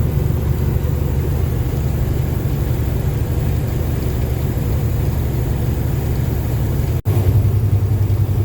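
Semi truck's emissions-deleted Detroit Diesel Series 60 14-litre engine running under load while driving, a steady low drone with road noise. A brief dropout about seven seconds in, after which the low drone is steadier and stronger.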